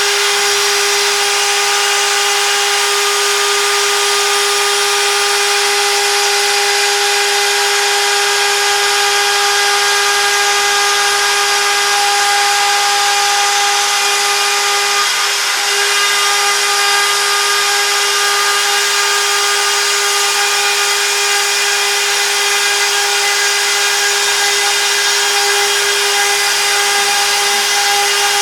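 CNC router spindle running steadily with a constant whine over a hiss of cutting noise, the machine milling a job.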